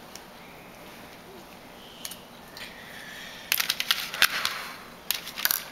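A paintbrush stirring and tapping in a plastic palette well, mixing watercolour: a rapid run of scratchy clicks a little past the middle, then a shorter run near the end.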